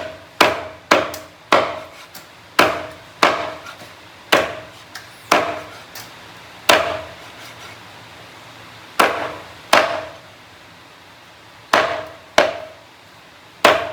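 Kitchen chopping: a blade striking a cutting board about a dozen times in irregular strokes, some in quick pairs, with pauses between. Each stroke is sharp and rings briefly.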